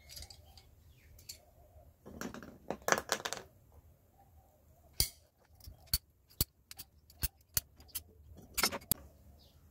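Small hard parts and tools being handled: a scatter of sharp clicks, with short rattling clusters about two to three seconds in and again near the end.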